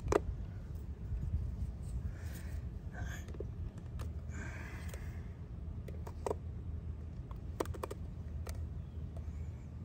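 Scattered light clicks and taps of a plastic trim tool and fingertips on a wheel centre cap as a vinyl overlay is pressed on, the sharpest click at the very start, with two soft brushing sounds about two and four seconds in, over a steady low rumble.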